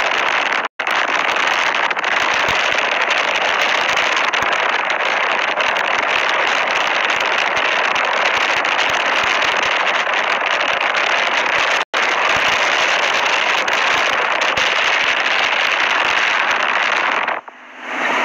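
Strong storm wind rushing and crackling on a phone microphone, a loud steady noise that cuts out for an instant twice.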